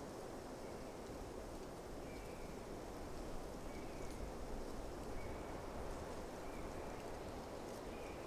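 Soft, even wash of a calm sea and wind. A bird's faint short high call repeats about every one and a half seconds.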